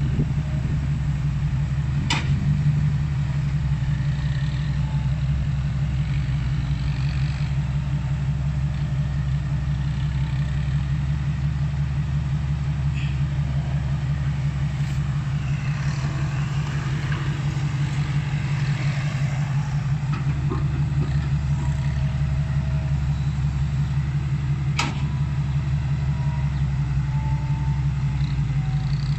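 Komatsu hydraulic excavator's diesel engine running at a steady, even drone while it digs, with a sharp knock about two seconds in and another near the end.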